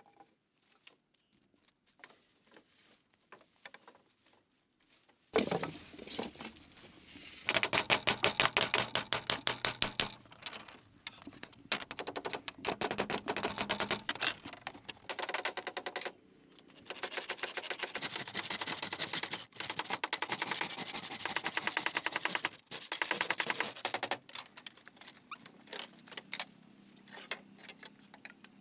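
Rapid clicking and rasping of bamboo being worked by hand. It comes in long runs with short breaks, starting about five seconds in, after a few faint ticks.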